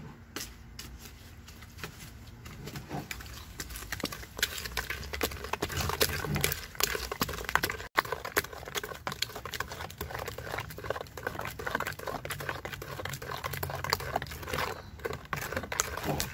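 A spoon beating a liquid mixture of raw eggs, powder and fish jelly by hand in a plastic bucket: rapid, continuous clicking and scraping of the utensil against the plastic sides and bottom.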